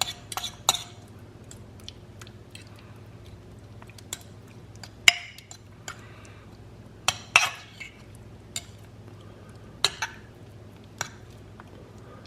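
A utensil clinking and scraping against a bowl while chicken strips are stirred into a chipotle sauce: irregular knocks a second or more apart, with a few louder clinks.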